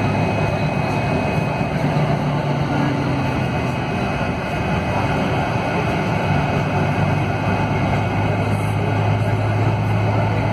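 Scania DC13 440 hp inline-six diesel of a Scania K440IB double-decker coach running at low road speed, heard from inside the upper-deck cabin. A low engine hum that shifts in pitch lies under steady road and body noise.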